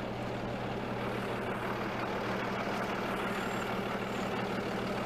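Flatbed rollback tow truck's engine idling, a steady low hum.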